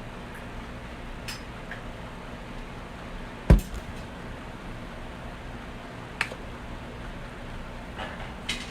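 Scattered knocks and clicks of kitchen things being handled on a counter, with one louder thump about three and a half seconds in and a few lighter taps after, over a steady low room hum.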